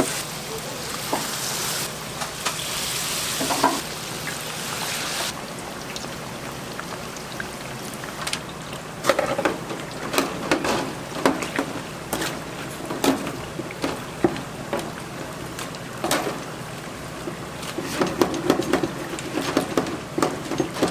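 Hot oil sizzling in a fryer, a steady hiss that cuts off about five seconds in, followed by repeated knocks and clatter of cooking utensils.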